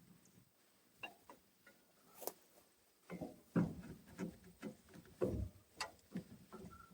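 Irregular light clicks and knocks of hand tools and a bolt being worked into a brush hog's driveline yoke to replace a sheared shear pin, a few of them ringing briefly like metal on metal.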